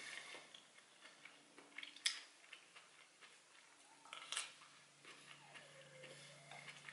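Quiet eating with wooden chopsticks from a ceramic bowl: two sharp clicks, about two seconds in and again just after four seconds, with faint ticks and soft chewing between.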